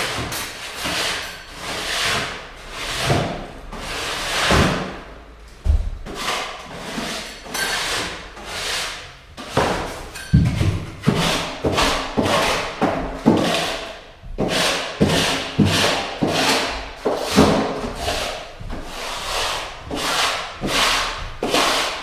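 Repeated rubbing and scraping strokes on wooden floorboards, about one a second, with a few dull thuds in the first half.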